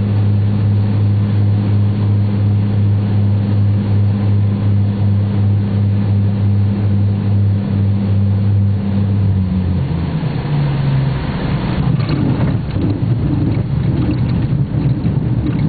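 Cessna 208 Caravan's single turboprop and propeller heard from inside the cabin as a steady low drone on final approach. About ten seconds in the drone changes pitch and fades as power comes off after touchdown. The last few seconds are a rough, rattling rumble of the wheels rolling on the gravel strip.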